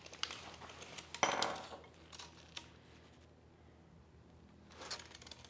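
Tape measure being handled: light clicks and a short metallic rattle about a second in as its steel blade is drawn out and hooked over the end of a wooden board, then a few faint clicks.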